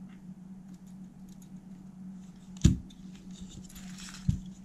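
Handling of a cassette deck's tape transport mechanism: light clicks and rattles of its metal and plastic parts, a sharp knock a little over halfway through and a smaller one near the end, with a brief scraping rustle between them. A steady low hum runs underneath.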